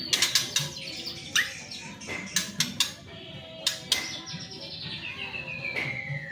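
White-rumped shama (murai batu) singing: a run of sharp clicking chips, then a long whistle that slides down in pitch from about four seconds in.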